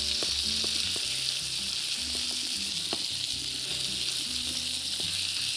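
Rib chops and sliced garlic sizzling in oil in a frying pan, a steady hiss, with a few light clicks of metal tongs against the pan as the chops are turned.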